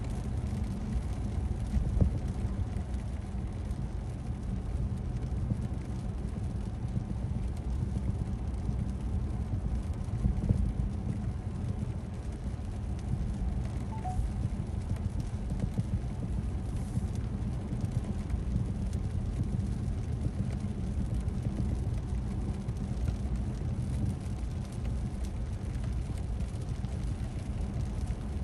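Steady road and tyre rumble inside a car cabin while driving at speed on a wet road.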